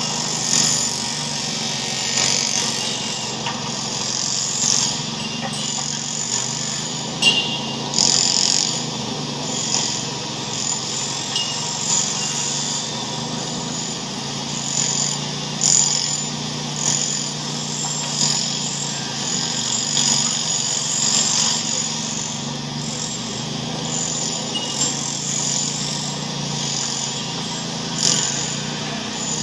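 Racket sound effect: a steady mechanical drone with frequent short clatters and hisses on top, like machinery and tools working together.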